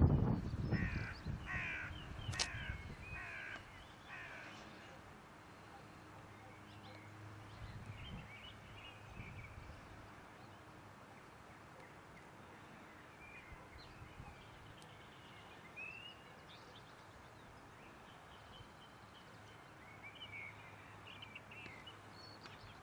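A crow cawing about five times in quick succession, starting about a second in, just after a brief low rumble on the microphone. Later there are faint, scattered bird chirps over a steady outdoor hiss.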